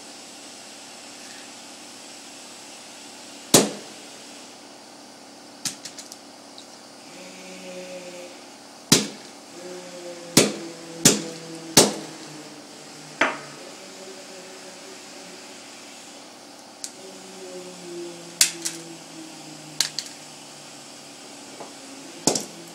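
Sledgehammer blows on an old Samsung mobile phone lying on a hard floor: a series of sharp, irregular smashes, a few seconds apart at first, then several in quick succession around the middle, with some smaller clicks of the phone's parts in between.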